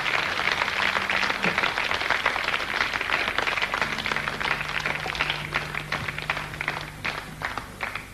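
Concert audience applauding and clapping, thinning out and dying down toward the end, over a low steady hum.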